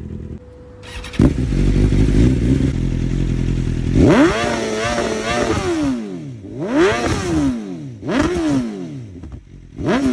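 Inline-four sport motorcycle engine starting about a second in and idling with a deep rumble, then revved in four quick throttle blips, each rising and falling in pitch.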